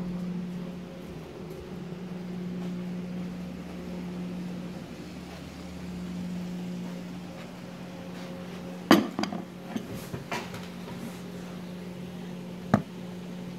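Steady low hum in the room, with a cluster of sharp clinks about nine seconds in and one more near the end as a plate of food with a fork on it is set down on a table.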